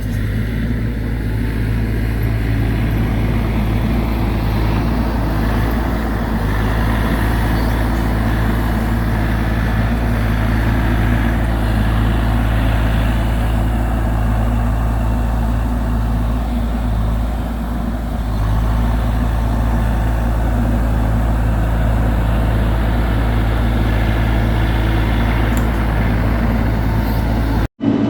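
Bobcat E42 mini excavator's diesel engine running steadily under work, dipping slightly about two-thirds through and cutting off for an instant near the end.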